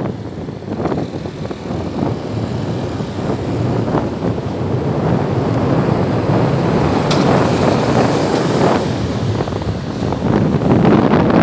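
Steady engine and road noise of vehicles travelling on a road, with a faint high whine about two thirds of the way through.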